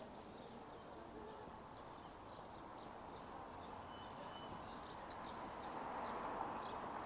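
Street ambience: a steady background hum of the city, with scattered short chirps of small birds above it. The hum grows a little louder near the end.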